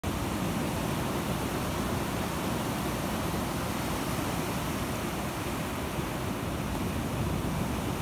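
Gulf surf breaking in several rows of small waves and washing up a sandy beach, a steady, unbroken rush of water.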